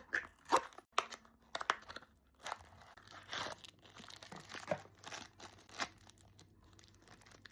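A small toy blind box being torn open and its wrapper crinkled: a run of irregular sharp crackles and short rips of packaging.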